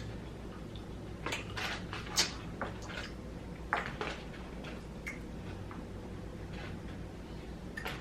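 Close-miked eating sounds from fried chicken wings: short, scattered mouth clicks and smacks of chewing, over a low steady hum.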